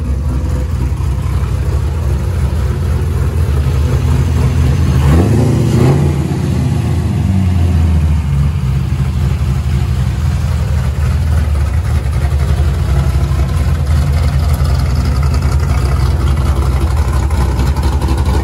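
Corvette V8 engine, running with its hood off: a steady idle, with one rev about five seconds in that rises and then falls back to idle over the next two to three seconds.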